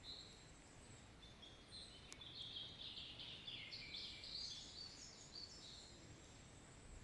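Faint distant songbirds twittering in a forest, a run of quick high chirps that rises about a second and a half in and fades out around six seconds.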